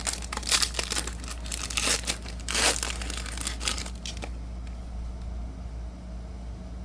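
Foil wrapper of a baseball card pack being torn open and crinkled: a dense run of crackling rustles that stops about four seconds in, leaving only a low steady hum.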